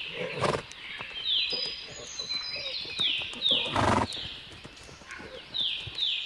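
A herd of horses on the move, hooves clopping, with two louder noisy bursts about half a second and four seconds in. A short high chirp falling in pitch repeats every half second or so.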